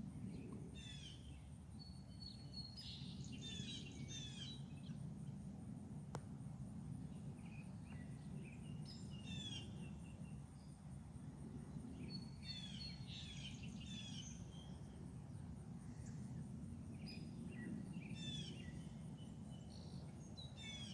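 Small birds singing in short phrases of quick chirps and whistles, a new burst every few seconds, over a steady low background hum.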